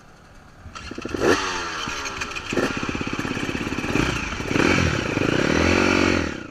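KTM dirt bike engine coming in about a second in and revving up and down several times as the bike pulls away along the trail, with a stretch of slow, even firing pulses in between.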